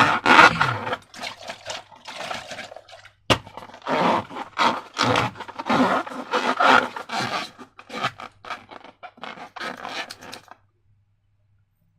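Slime being scraped and squished by hand in irregular strokes, with a sharp click about three seconds in; the handling stops abruptly near the end.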